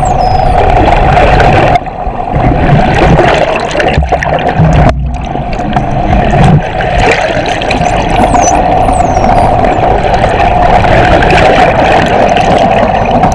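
Underwater sound of bottlenose dolphins over the steady hum and rush of a boat's engine and propeller wash. Several high dolphin whistles glide up and down, most clearly about two-thirds of the way through.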